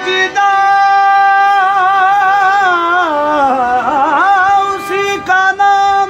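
Qawwali singing over a harmonium: the voice holds long notes, winds down through a wavering run in the middle, then returns to held notes with short breaks near the end.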